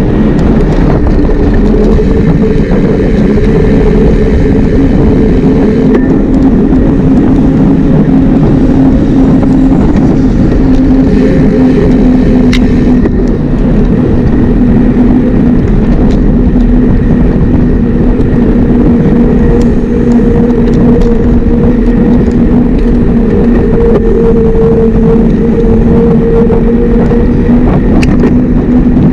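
Steady road and wind noise of riding along at speed, with a humming drone that drifts slightly in pitch.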